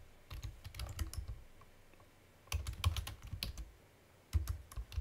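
Typing on a computer keyboard in three short runs of keystrokes, with brief pauses between them.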